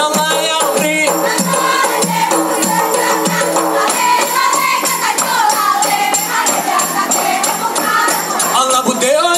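A group of Saman dancers singing in unison over fast, regular hand claps and body slaps. About four seconds in, the sung line turns into longer, drawn-out phrases.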